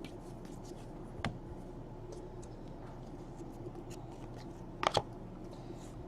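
Trading cards being handled and slid against one another, faint scratchy rustling over a low room hum, with a sharp tap about a second in and a quick double tap near the end.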